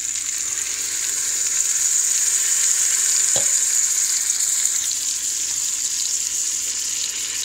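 Masala gravy and stuffed eggplants sizzling in hot oil in an Instant Pot's stainless-steel inner pot on sauté mode: a steady high hiss that grows louder a couple of seconds in and eases again, with one light knock about three and a half seconds in.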